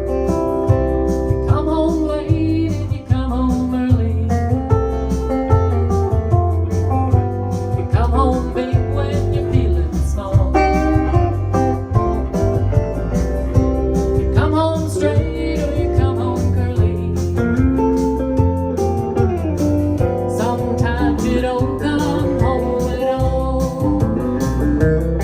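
Band music with a bluesy country feel: a guitar plays a lead line with bending notes over bass and a steady drum beat.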